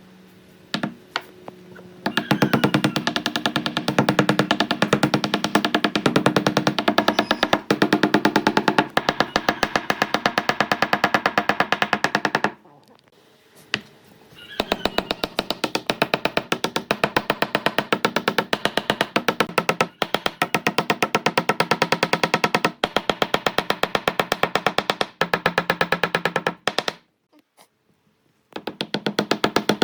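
Background music with a fast, steady beat and pitched instruments. It drops out briefly twice: about halfway through and near the end.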